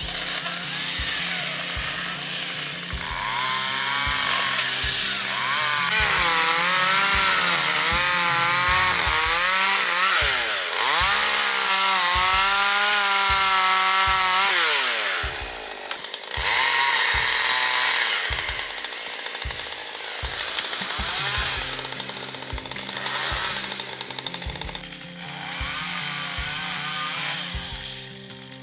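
Chainsaw cutting wood, its pitch rising and falling as it revs and bogs under load, loudest for several seconds in the middle. Background music with a steady low beat plays under it.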